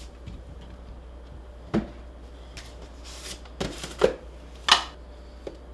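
Weightlifting gym equipment being handled: about five separate sharp knocks and clacks, the loudest two close together near the end.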